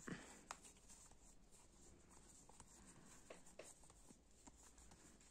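Near silence with a few faint clicks and a light rustle of Pokémon trading cards being handled and leafed through.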